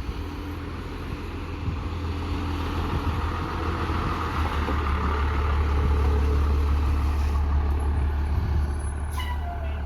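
A large bucket truck's engine running as it drives in, building in level to a peak about midway and then easing off. A brief falling squeal comes near the end.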